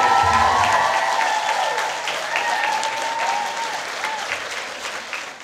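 Theatre audience applauding, with cheering voices over the clapping. The music's last bass dies away about a second in, and the applause fades near the end.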